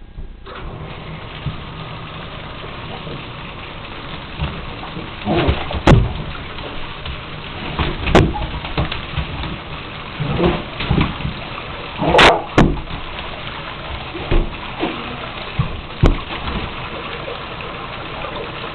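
Water running steadily into a bathtub, starting about half a second in, with loud splashes and knocks in the tub every few seconds.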